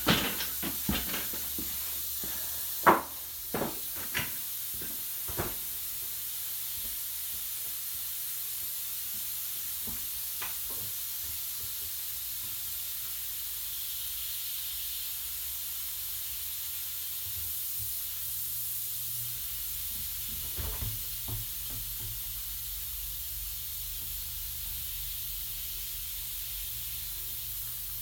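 A few sharp knocks and clicks, the loudest about three seconds in and a small cluster again about twenty seconds in, over a steady hiss.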